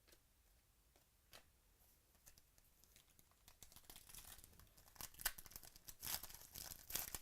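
Trading card pack wrapper being torn open and crinkled by hand, faint at first and then a quick run of crackly tears that grows louder over the last few seconds.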